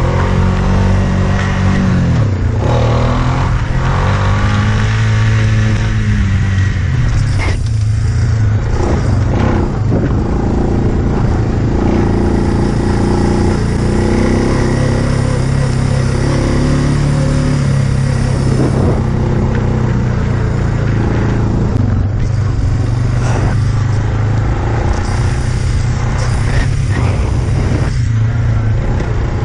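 Suzuki KingQuad 4x4 ATV engine running under way, its note rising and falling with the throttle over the first several seconds, then running more steadily.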